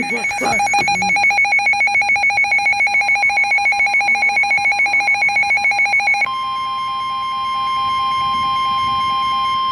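An emergency weather alert: a rapid, loud two-tone electronic beeping for about six seconds. Then the steady single-tone NOAA Weather Radio warning alarm tone comes on, with slower beeps going on under it until near the end.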